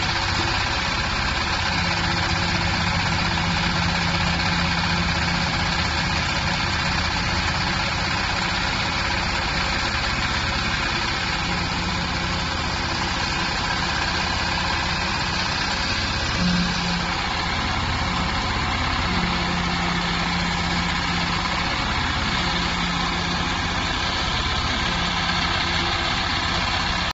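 Hydraulic silage baler running: a steady mechanical drone from its motor and hydraulics, with a low hum that comes and goes every few seconds and a brief louder knock about sixteen seconds in.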